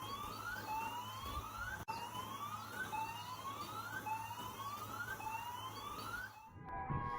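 Siren sounding a repeated rising whoop, each sweep climbing in pitch and repeating about once a second. It cuts off about six and a half seconds in.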